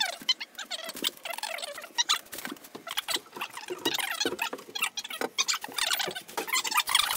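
Fast-forwarded footage audio: rapid, high-pitched chattering that sounds like sped-up voices, mixed with quick clicks and clatter.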